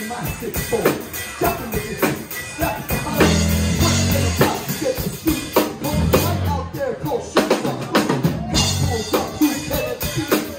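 Live rock band playing: drum kit, electric guitar and bass guitar, with a singer's voice over the music.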